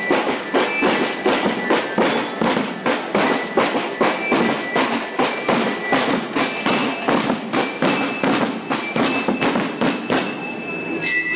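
Marching-band drums beating a steady march rhythm, about four strikes a second, with high ringing tones over them. The drumming thins out near the end.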